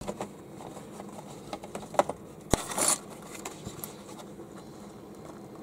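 Small cardboard toy boxes being handled by hand: scattered light taps and clicks, two sharper knocks about two and two and a half seconds in, then a brief scraping rustle as a box is slid and picked up.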